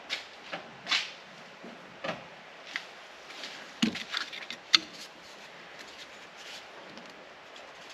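Metal tools clinking and knocking against the rusty parts of a car's front strut and hub during disassembly: irregular sharp clicks, with a quick flurry of knocks about four seconds in.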